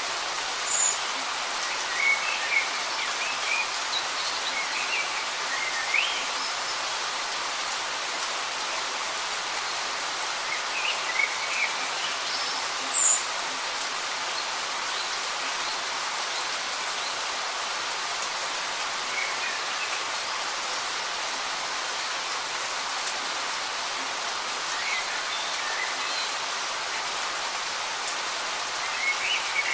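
Light rain falling steadily, a continuous even hiss. Short high bird chirps come through now and then, the loudest about halfway through.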